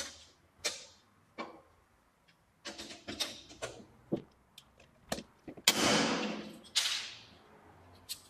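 Hand pop-rivet tool worked on an aluminium frame bar: a run of sharp clicks and knocks. About two thirds of the way in come two longer scraping rustles.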